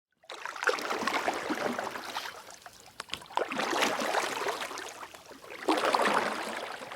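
Water splashing and sloshing in three surges, each swelling and fading over a couple of seconds, with fine crackling and gurgling through each.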